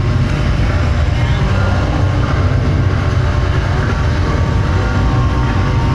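A steady, loud low rumble under an even background noise.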